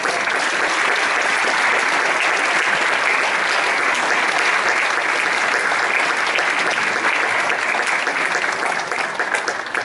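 Theatre audience applauding, a dense steady clapping that thins out right at the end.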